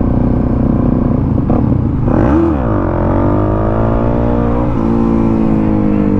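Suzuki DR-Z400SM single-cylinder four-stroke engine running under way: steady at first, revved up and dropped back about two seconds in, then pulling again with its pitch slowly easing lower.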